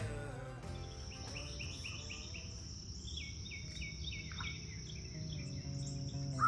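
Nature ambience: birds chirping in quick repeated short notes over a steady high insect trill that sets in about a second in, with a faint low hum underneath.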